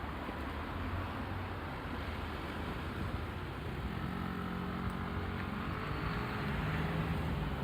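Traffic at a road intersection: a steady hum of cars passing. About halfway through, a nearby vehicle's engine comes in and grows a little louder.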